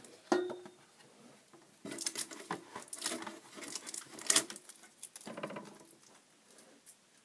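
Tech Deck fingerboard clicking and clattering on a plastic ramp as fingerboard tricks such as ollies are done: the tail snaps and the wheels hit the surface in irregular bursts. The sharpest crack comes about four seconds in.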